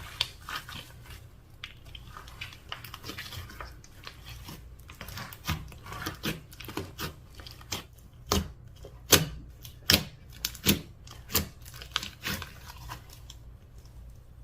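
Slime being squeezed and worked by hand, giving irregular wet clicks and pops, with a run of louder pops in the second half that dies away near the end.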